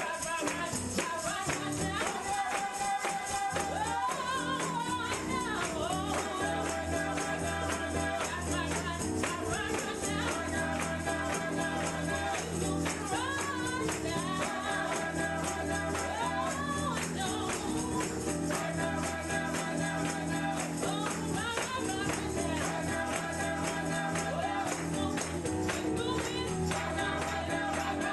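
Gospel music with a tambourine shaken to a fast, steady beat over held chords and singing.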